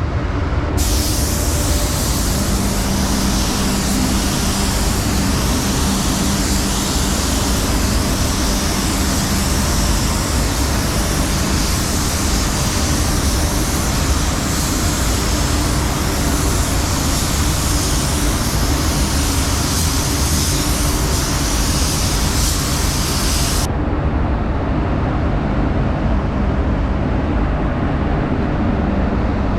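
Spray gun hissing steadily as it lays down a coat of pearl, over a constant low machine rumble. The hiss starts about a second in and cuts off suddenly about six seconds before the end, leaving the rumble.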